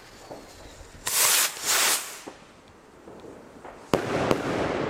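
Two Zink Z1 bouquet fireworks rockets. About a second in come two loud hissing rushes. Near the end two sharp bangs follow close together as the rocket heads burst, trailed by a longer, rougher stretch of noise.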